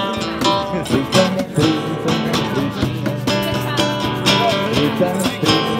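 Background music with quick plucked and strummed notes.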